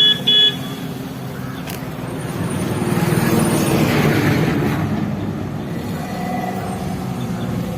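Suzuki Alto K10's small three-cylinder petrol engine pulling under load, its sound swelling about three seconds in and then easing off. Two short, high beeps come right at the start.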